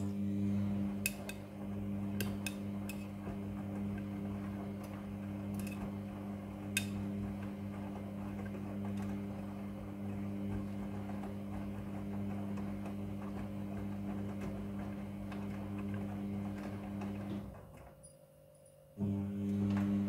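Midea front-loading washing machine tumbling a wet load in its wash cycle: the drum motor hums steadily under the swish of water and clothes, with a few light clicks in the first seven seconds. About 17 seconds in the drum stops, and it starts turning again a second and a half later, the pause-and-restart pattern of a front-loader's wash tumble.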